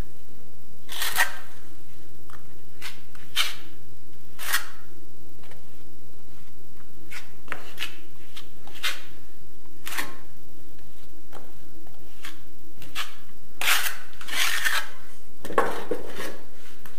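Steel plastering spatula spreading and scraping wet mortar on a wall corner: separate short scrapes and clacks every second or two. A louder run of scrapes near the end comes from a small spatula working mortar against a wide plastering knife.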